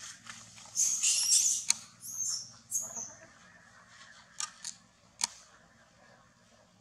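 Macaques scuffling: a burst of high-pitched shrieking squeals about a second in, then a couple of shorter squeaks, then a few sharp clicks.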